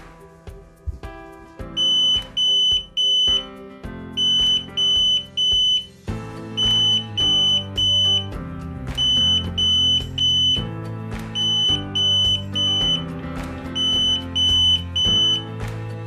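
A fire alarm beeping a high steady tone in groups of three short beeps, six groups about two seconds apart. This is the three-beep temporal pattern that signals a fire. It starts about two seconds in, over background music.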